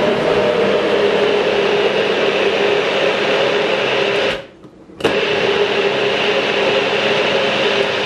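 Personal bullet-style blender running, pressed down to blend carrot and beetroot chunks with water. A steady motor whir stops suddenly a little past halfway, restarts about a second later, then cuts off again at the end.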